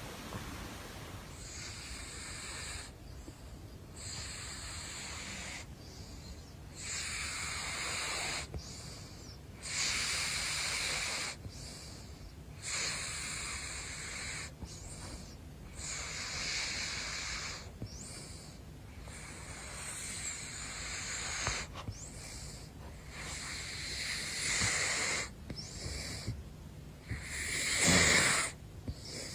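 Caracal snoring: airy, hissing breaths that repeat about every two to three seconds.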